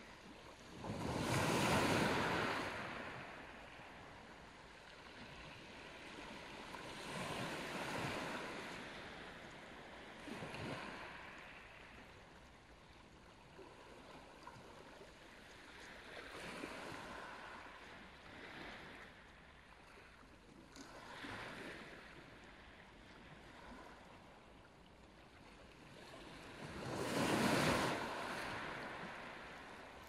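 Small sea waves breaking and washing over a pebble beach, each surge swelling and fading every few seconds. The surges near the start and near the end are the loudest.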